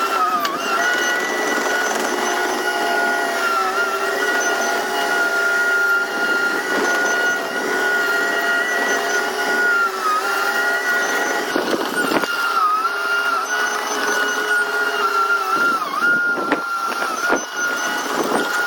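Bulldozer's diesel engine running steadily with a high whine, its pitch sagging briefly now and then under load, with a few clanks near the end.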